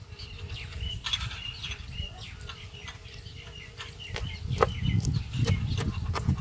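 Kitchen knife slicing green chillies on a plastic cutting board: a series of sharp clicks as the blade strikes the board, mostly in the second half. Birds chirp in the background throughout.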